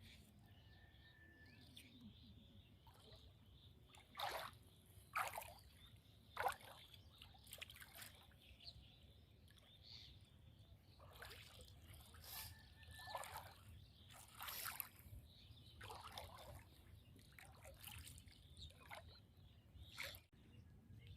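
Scattered soft splashes and trickles of water, a dozen or so short bursts, the loudest three coming about four to seven seconds in.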